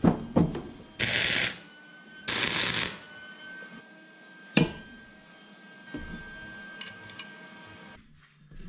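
Two short bursts of MIG tack welding, each a loud crackling hiss about half a second long, between a few sharp metal clanks; a thin steady whine runs on after them.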